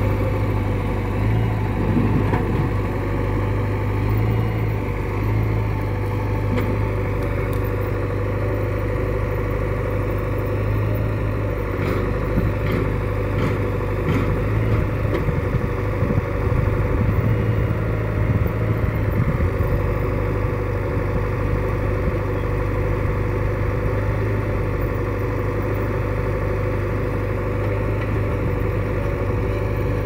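Diesel engines of a JCB 3DX backhoe loader and a Mahindra tractor running steadily close by while the backhoe digs and loads soil into the tractor's trolley.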